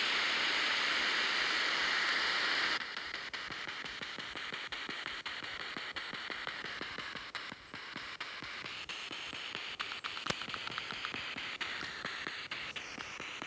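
SP7 spirit box sweeping the radio band: a loud hiss of static for about the first three seconds, then a quieter hiss broken by rapid clicks as it jumps from station to station.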